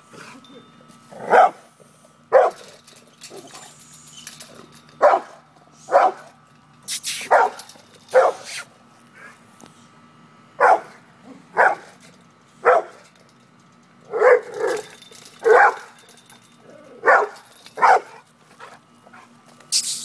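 Brindle pit bull barking at a cat: single loud barks, roughly one a second, some in quick pairs, with short pauses between runs.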